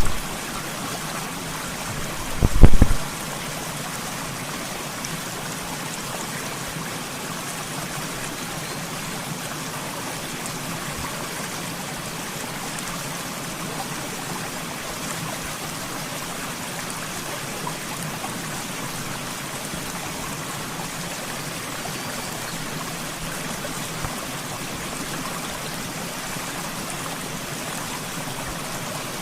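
Stream water rushing steadily over rocks, a constant even hiss. About two and a half seconds in, one brief loud low thump cuts through it.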